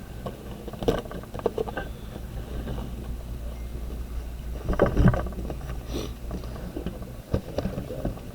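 Handling and opening a sealed box of baseball cards: scattered rustles, taps and scrapes of cardboard and wrapper, busiest about five seconds in, over a steady low hum.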